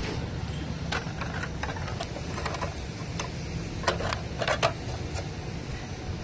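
Sharp metal clicks and clacks from a rooftop AC unit's electrical disconnect switch box being handled as power is restored, a few scattered from about a second in and a louder cluster around four seconds, over a steady low hum.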